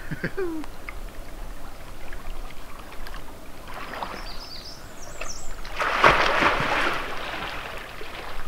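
A person plunging into lake water: a splash about two-thirds of the way through, followed by the water sloshing as it settles.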